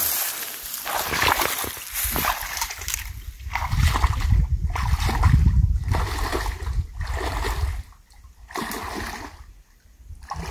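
A person wading through shallow, muddy creek water, each step splashing and sloshing about once a second. A low rumble runs under the splashes in the middle.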